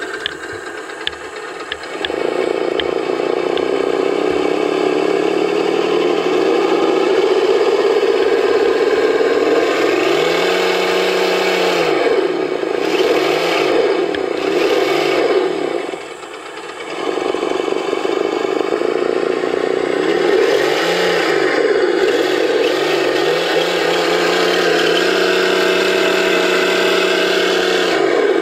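Simulated engine sound from a SENSE Innovations ESS-One+ sound module in an Axial SCX10 RC crawler, played through the module's speaker. It steps up from idle about two seconds in, then revs up and back down twice, with a brief drop about sixteen seconds in, as the crawler drives.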